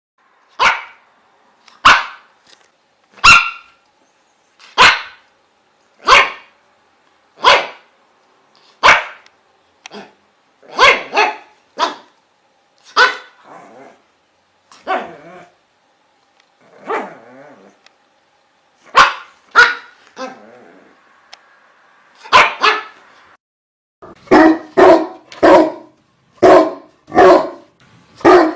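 A dog barking: single loud barks roughly every second and a half, a few softer, lower barks in the middle, then a quicker run of barks, about two a second, near the end.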